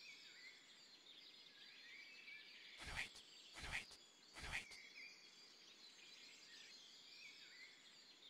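Faint outdoor ambience with small birds chirping now and then, broken by three short soft bursts of noise between about three and four and a half seconds in.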